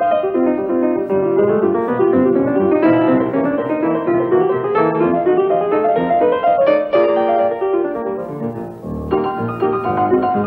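Instrumental music: a line of notes climbs steadily through the middle, the music thins briefly about eight seconds in, then fuller chords return near the end.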